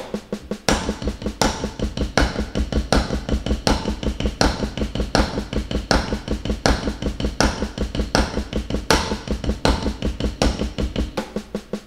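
Snare drum played with sticks in steady sixteenth notes at 80 BPM, sticking left-right-right-right, with a louder accented stroke on each beat and quieter ghost notes between. The strokes start about a second in and stop shortly before the end.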